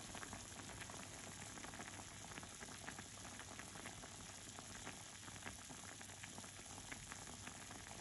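Broth simmering in a clay donabe hot pot on a portable gas burner: a steady bubbling hiss dotted with many small pops.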